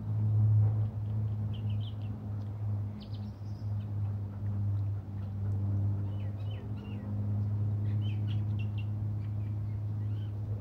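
Small birds chirping in short scattered calls over a steady low hum, which fades away just after the end.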